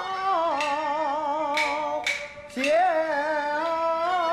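Chinese Han opera (Handiao Erhuang) singing: a voice holding long, wavering notes in two drawn-out phrases, with about four sharp percussion strikes behind it.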